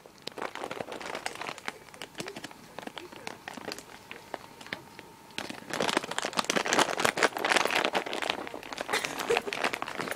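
Crackling and rustling handling noise as cats and a dog rub their fur, faces and noses against the recording iPod and its microphone. The noise is louder from about halfway through.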